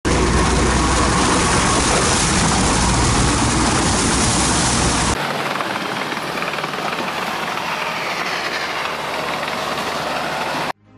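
Small diesel tracked crawler driving over mud and through water, its engine and tracks running steadily with a heavy rumble. About five seconds in the sound changes abruptly to a thinner version with less rumble, and it cuts off shortly before the end.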